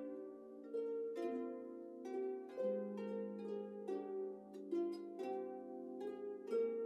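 A harp ensemble playing: plucked chords and melody notes that ring on and fade, with a new note or chord struck about every half second to a second over sustained low notes.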